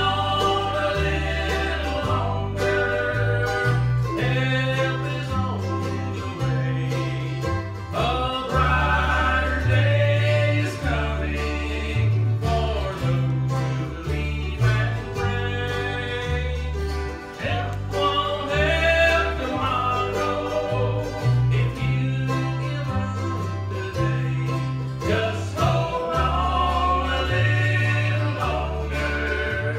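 Bluegrass gospel band playing: plucked string instruments over a bass line that steps from note to note.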